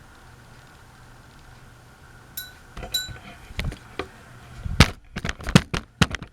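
A vintage Encon ceiling fan hums steadily, then a handful of sharp clicks and clinks begin about two seconds in, the first two with a short glassy ring. A quicker run of louder clicks follows near the end.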